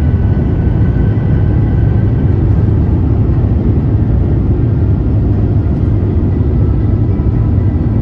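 Airbus A350-900's Rolls-Royce Trent XWB engines at takeoff thrust during the takeoff roll, heard inside the cabin: a loud, steady, deep rumble with a faint, even whine above it.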